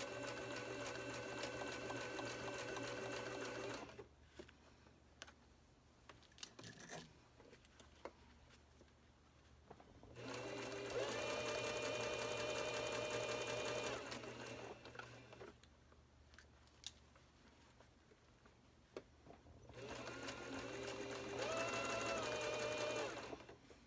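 Electric sewing machine stitching in three short runs of about four seconds each, its motor whine rising as each run gets going. The machine stops in between while the elasticized fabric is stretched flat for the next slow stretch of stitching, and a few faint clicks are heard in the pauses.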